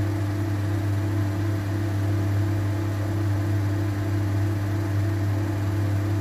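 Steady low electric hum of a running kitchen appliance motor, with an even hiss over it.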